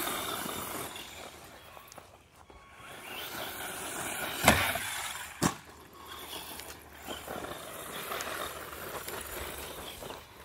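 Electric RC desert truck driving over grass and dirt, its motor and tyres making a hissing run that rises and falls. Two sharp knocks come about four and a half and five and a half seconds in.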